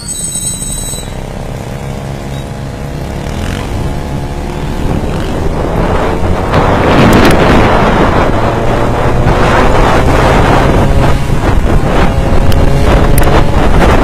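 Small gas engine of a stand-up scooter running under throttle while riding, with wind rushing over the microphone that grows much louder from about six seconds in as speed builds.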